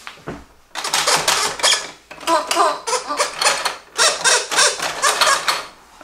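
Toy push-button farm barn sounding off as its duck pops up in the loft window: a rapid run of rasping, clattering bursts, about four or five a second, lasting some five seconds.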